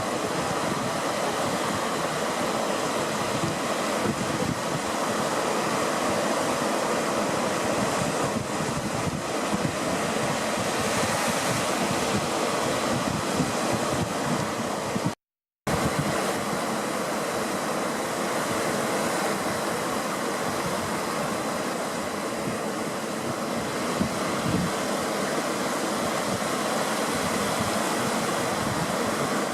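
Steady wash of beach surf mixed with wind noise on the microphone. The sound cuts out completely for about half a second midway.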